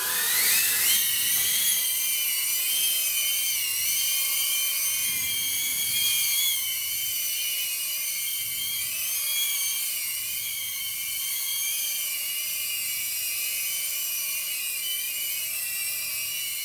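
Tiny whoop quadcopter's four small brushless motors and ducted propellers spinning up into a high-pitched whine as it lifts off, then hovering with a whine whose pitch wavers as the throttle shifts, stopping at the very end.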